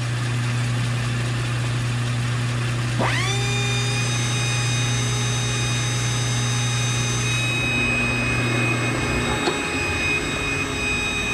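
Metal lathe running with a steady low hum. About three seconds in, a pencil grinder mounted in the tool post spins up with a quick rising whine to a steady high pitch. The lathe hum stops near the end while the grinder keeps whining.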